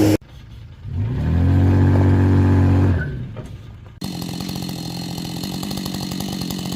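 Edited cuts of engine sounds: a motor revs up and holds for about two seconds, then fades. From about four seconds in, a chainsaw runs steadily at high revs.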